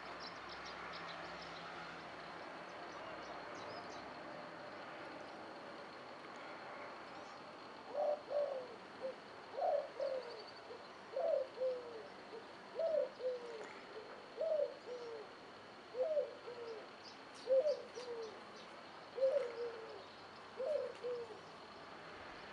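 A dove cooing: a two-part, falling coo repeated nine times about every second and a half, starting about eight seconds in, over a steady background hiss.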